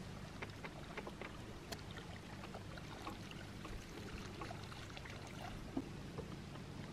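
Quiet water around a small boat: scattered light splashes and drips over a faint steady low hum.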